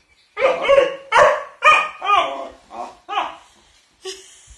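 Mastiff puppy giving a run of about six short, pitched barks and yowls, fainter toward the end, as if answering back.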